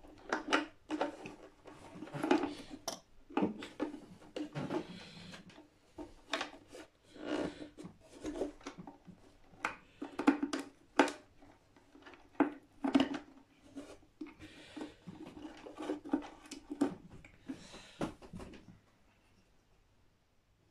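Handling noise from feeding a toggle switch and its wiring through the f-hole of a hollow-body electric guitar: irregular clicks, light knocks and rubbing of metal and wire against the wooden body, dying away near the end.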